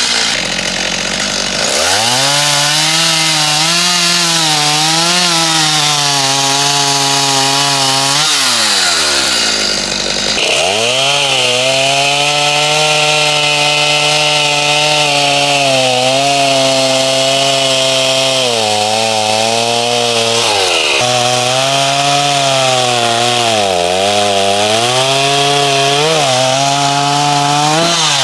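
Stihl gas chainsaw bucking red oak into firewood lengths. It revs up from idle into a cut and runs under load, its pitch wavering and dipping as the chain bites. It drops back to idle about nine seconds in, revs up again for a longer cut, and is let off again near the end.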